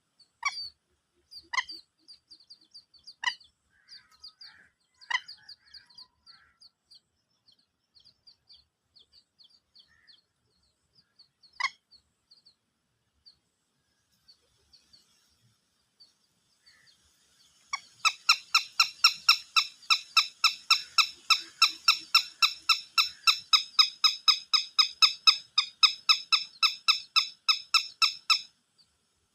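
Small birds chirping: scattered thin, high chirps with a few sharper calls, then, a little past halfway, a loud, fast run of repeated calls, about five a second, that goes on for some ten seconds.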